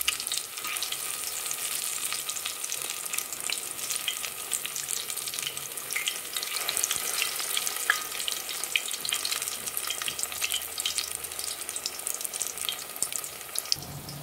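Zucchini and carrot fritters frying in hot oil in a stainless steel pot: a steady sizzle dense with small crackling pops.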